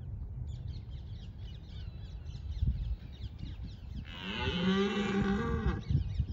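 A red deer stag in rut gives one long roar about four seconds in, lasting nearly two seconds: a rutting challenge to a rival stag over a harem.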